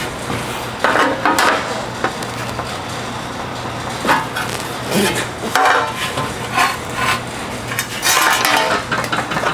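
Irregular clattering and scraping of sheet steel being handled and worked by hand, about half a dozen short bursts spread through, over a steady low electrical hum.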